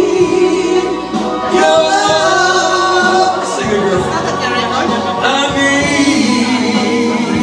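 A man and a woman singing a duet together into one microphone over accompanying music, with long held notes and vibrato.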